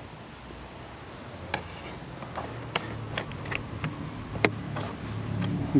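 Short plastic clicks and taps as a Starlink cable connector is worked into the port on the back of the dish: a run of irregular clicks, the sharpest about three-quarters of the way through.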